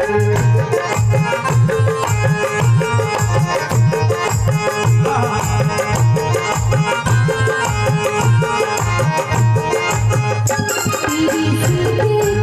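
Live bhajan music played loud, with a fast, steady hand-drum beat under melody instruments.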